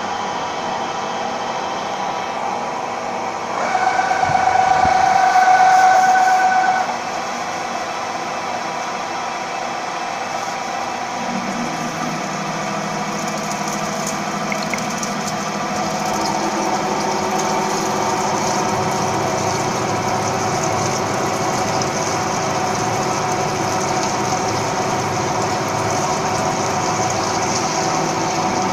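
Gantry CNC drilling machine running, with a louder high whine for about three seconds near the start. From about eleven seconds in a lower steady hum sets in and grows a little louder as the spindle drills the steel workpiece under coolant.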